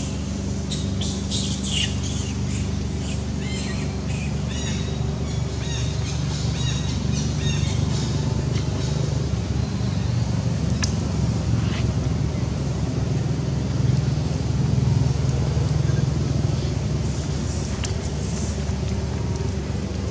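A steady low engine drone, like a motor vehicle running, with short high animal squeaks and chirps over it, thickest in the first several seconds and again briefly near the end.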